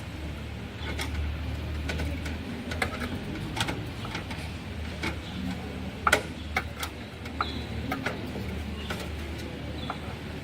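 Irregular clicks and knocks of hard computer parts being handled while a desktop system unit is dismantled, the loudest knock about six seconds in, over a steady low hum.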